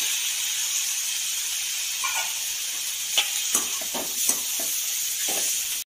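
Vegetables sizzling in hot oil in a metal kadai with a steady hiss. From about three seconds in, a steel slotted spoon stirs the pan, giving a quick series of clicks and knocks against the metal. The sound cuts off abruptly near the end.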